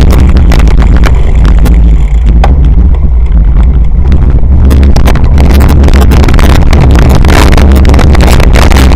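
Wind buffeting and jolting rattle picked up by an action camera riding on a cyclocross bike over bumpy grass. The sound is a loud, overloaded rumble with constant knocks from the rough ground.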